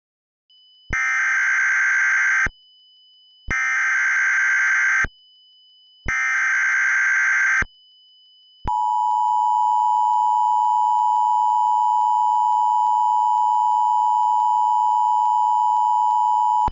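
Emergency Alert System alert opening: three bursts of SAME header data tones, each about a second and a half long with a second's gap between them, then the steady two-tone attention signal starting about nine seconds in and holding. This is the start of an EAS tornado warning.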